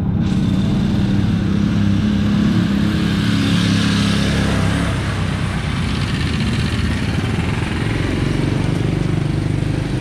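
Motor vehicle engine running steadily, its hum weakening about halfway through, with road noise swelling about four seconds in.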